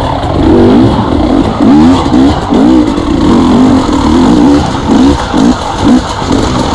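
KTM two-stroke enduro dirt bike engine revving up and down over and over as the throttle is worked on rough, rocky trail.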